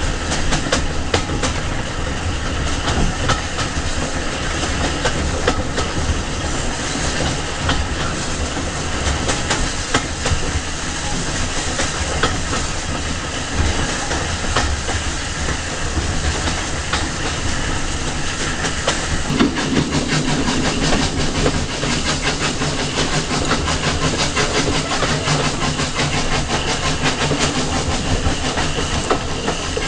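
Steam-hauled passenger train running, heard from a coach window: a steady rumble with the rapid clickety-clack of the coach wheels over the rail joints. A deeper sound joins about two-thirds of the way through.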